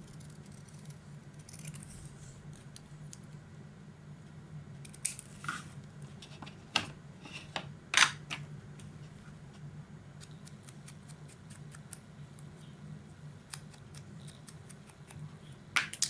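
Scissors snipping small paper labels, with a few sharp clicks of the blades and paper handling, the loudest about halfway through, over a steady low hum.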